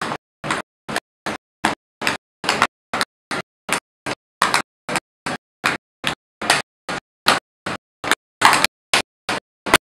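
Tap shoes striking a portable tap board in a steady, even rhythm of sharp taps, about two to three a second.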